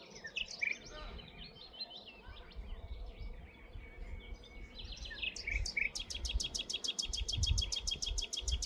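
Several wild birds chirping and singing, with a fast, even trill of about nine notes a second starting about six seconds in. Wind rumbles low on the microphone underneath.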